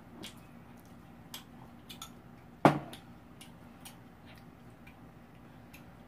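Eating utensils clicking against a bowl a few scattered times, with one louder knock about two and a half seconds in.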